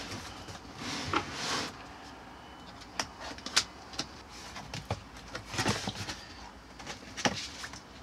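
Cardboard box being opened and unpacked by hand: flaps and packing scraping and rustling, with several sharp taps and clicks in between.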